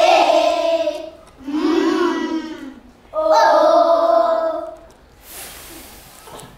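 A class of young children calling out letter sounds together in a drawn-out chant, three calls in a row, then a short hiss about five seconds in.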